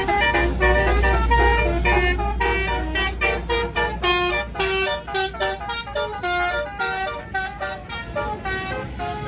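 A tour bus's basuri telolet horn playing a fast melody of stepping notes, over the low rumble of the bus engine, which eases after the first few seconds.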